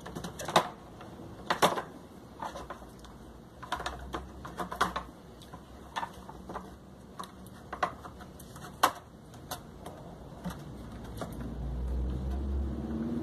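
Irregular clicks and knocks of an electric shower's plastic housing and parts being handled and fitted together as the heating element is put back in place.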